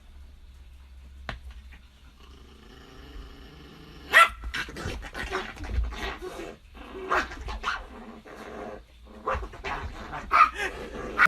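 A dog barking repeatedly and irregularly, starting about four seconds in, over a low steady hum.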